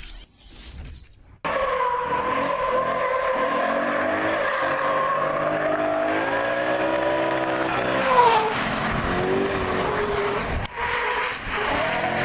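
Rally car engine at full throttle, starting abruptly about a second and a half in, its pitch climbing and dropping in steps as it changes gear, with a brief tyre squeal about eight seconds in and a sharp crack near the end.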